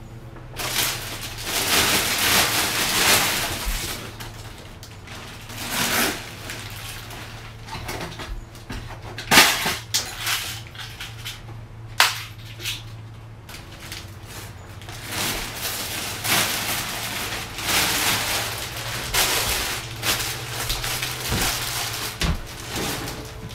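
Rustling of plastic packaging being handled, in uneven bursts, with two sharp clicks near the middle. A steady low hum runs underneath.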